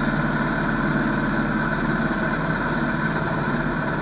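Predator 212 single-cylinder four-stroke engine idling steadily, heard from inside the car body.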